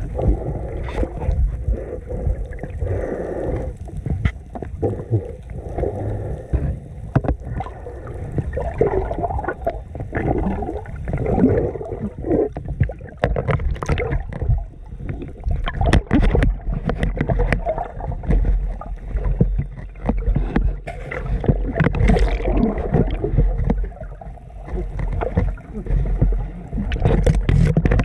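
Muffled underwater water noise as heard from inside an action-camera housing: irregular gurgling and sloshing with scattered knocks, a deep rumble throughout.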